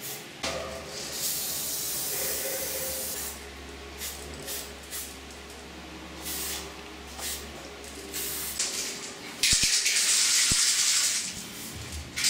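Aerosol spray-paint can hissing in a series of short bursts as paint is sprayed onto a wall, with a longer, louder burst near the end.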